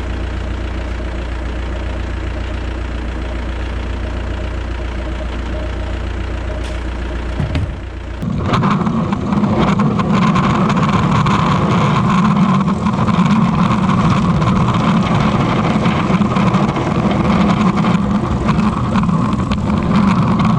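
Diesel engine of a heavy snow-clearing machine running steadily at a low idle. About eight seconds in it abruptly gets much louder and busier, running at high revs for the rest.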